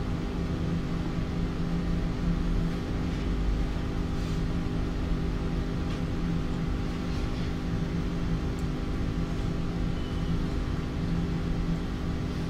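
Steady room hum: a constant noise bed with several unchanging low tones and no speech.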